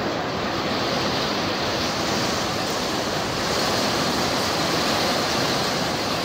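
Very heavy thunderstorm rain, perhaps with hail, falling on the roof, heard from inside the building as a loud, dense, steady hiss.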